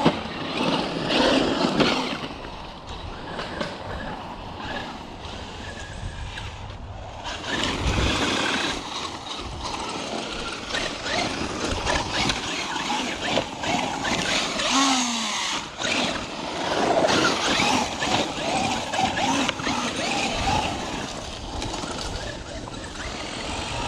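Traxxas UDR electric RC desert truck driving over rough dirt, its tyres scrabbling and its motor surging and easing off as the throttle changes, with one short rising whine about fifteen seconds in.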